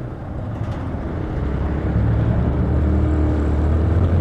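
Motorcycle engine running under acceleration during an overtake, over wind and road noise; it gets louder and settles into a steady drone about a second and a half in.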